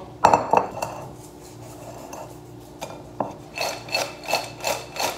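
Crisp homemade French fries tossed in a glass bowl, sliding and rattling against the glass. A few knocks come first, then a quick run of shakes, about four a second, near the end.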